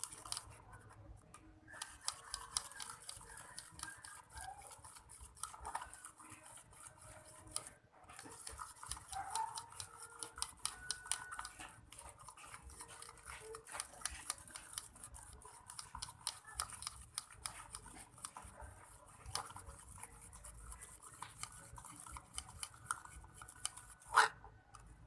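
Homemade slime mixture being stirred and squished in a container: rapid sticky clicks and squelches with small squeaks, and one sharp click near the end.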